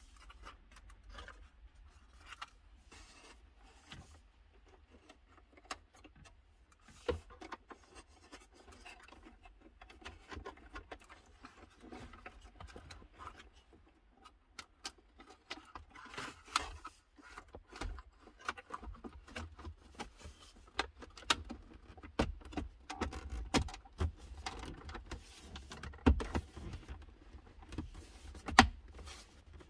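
Hands working plastic car interior trim and wiring: irregular clicks, scrapes and rustles of plastic parts and connectors, busier in the second half. Near the end the rear console vent panel is pressed into place, with a couple of sharp clicks.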